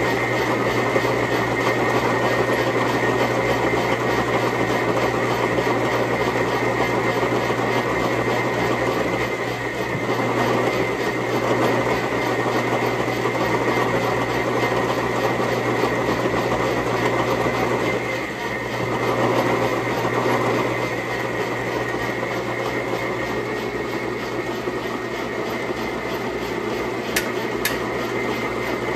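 Metal lathe running steadily while a twist drill in the tailstock chuck bores into the end of a spinning steel bar, drilling the hole that will be tapped for a 5/16-18 thread. The cutting noise eases briefly about ten seconds in and again around eighteen seconds, and a couple of light clicks come near the end.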